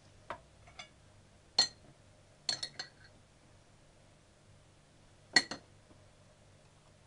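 Small, sharp clinks of hard candy-coated chocolates knocking against a plate and each other as they are set on pastries: a few single clicks in the first two seconds, a quick cluster of three or four around two and a half seconds in, and the loudest single clink a little past five seconds.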